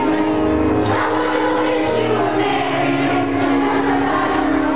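Youth choir singing a Christmas song with instrumental accompaniment and a low bass line.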